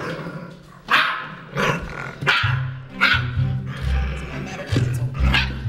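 Maned wolf pup giving short, sharp calls, several in a row. Music with a steady bass comes in about halfway through.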